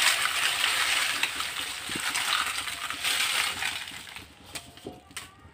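Dried gavrani red chillies being tipped into a metal pan, a dense crackling rustle that thins out after about four seconds, with a few light clicks near the end.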